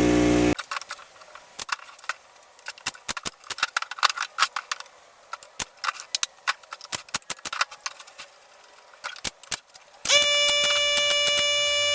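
Irregular sharp clicks and knocks, as of wood being handled and worked with hand tools, at an uneven pace for several seconds. About ten seconds in, a loud steady pitched tone with many overtones takes over.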